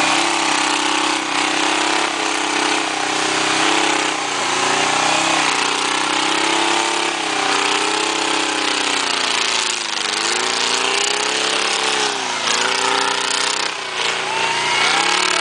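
A motor vehicle's engine running, its pitch rising and falling as it revs up and down.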